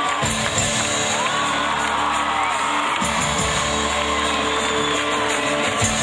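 Live band music starting up, with deep sustained notes that change about three seconds in, under a cheering, whooping crowd, recorded from among the audience.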